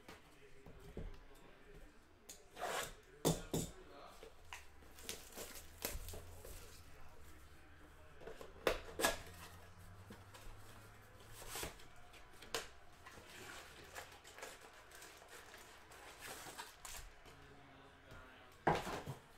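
Cardboard trading-card mega box being opened by hand: scattered scrapes, rips and taps as the seal is broken and the flaps are folded back, the sharpest near the end.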